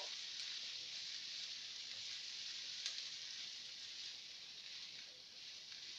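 Diced potatoes and onions sizzling in a nonstick frying pan: a steady frying hiss, with a couple of light clicks as a plastic spatula stirs them.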